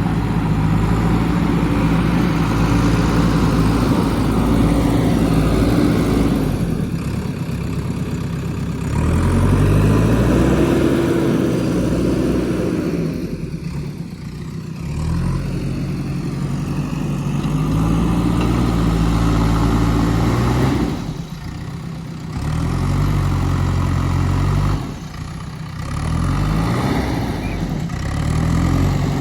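JCB 3DX backhoe loader's diesel engine working, its pitch rising and falling again and again as it is revved up and dropped back several times.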